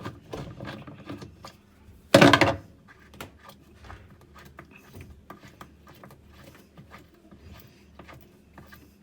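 Small clicks and knocks of a tool and plastic parts as the bolt holding the wash plate of a top-load washing machine is worked loose, with one louder clatter about two seconds in.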